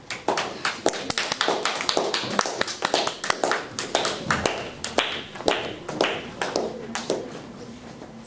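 A small group clapping by hand: brisk, uneven applause that thins out and stops about seven seconds in.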